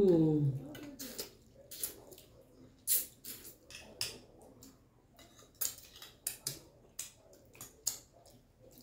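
Close-up eating sounds: irregular sharp clicks and smacks of chewing, lips and finger-licking, with a metal spoon knocking and scraping a plate of rice. A brief falling hum of a voice at the start.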